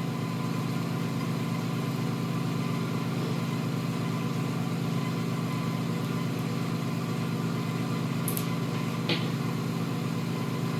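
A motor running steadily with an even, low drone, and two faint clicks near the end.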